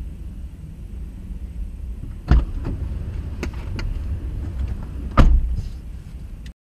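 Double-stack intermodal freight train rolling past, heard from inside a stopped car: a steady low rumble with two heavy thumps about three seconds apart and lighter clicks of the wheels between them. The sound cuts off suddenly near the end.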